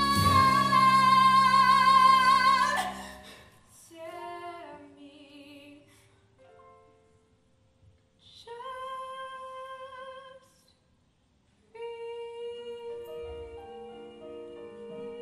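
A young woman belting a long, loud high note of a musical-theatre song over instrumental accompaniment, cutting off about three seconds in. Quieter, sparse notes follow with brief near-silent pauses, another held note near the middle, and from about twelve seconds a steady sustained chord of accompaniment.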